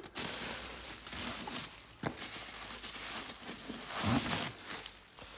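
Bubble wrap and cardboard crinkling and rustling as a wrapped tail light is handled in its box, with a sharp knock about two seconds in and a duller thump about four seconds in.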